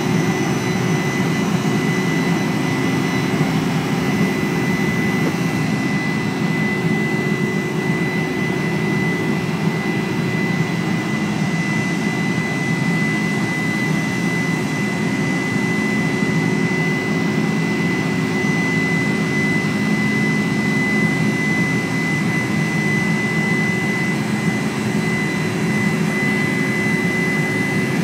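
Boeing 747-400ER's GE CF6-80C2 turbofan engines running at climb power just after takeoff, heard from inside the cabin over the wing: a steady roar with a high whine held at one pitch.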